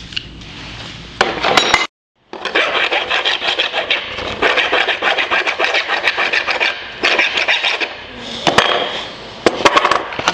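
Hand file rasping on the edge of an aluminium part, in quick back-and-forth strokes. The sound cuts out completely for a moment about two seconds in, then the filing carries on.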